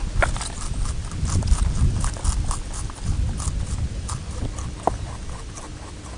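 A rabbit chewing food close to the microphone: quick, crisp crunches, several a second.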